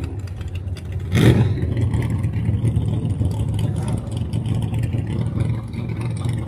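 Drag car's engine running low and steady as the car rolls away after its burnout, with one short, loud burst about a second in.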